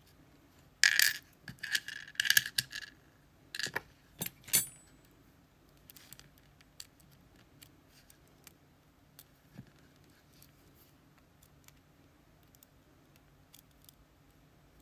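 Small metal parts clinking and rattling as a lock cylinder and tools are handled: a burst of jangling clinks about a second in, three sharp metal clicks a little later, then only faint light ticks.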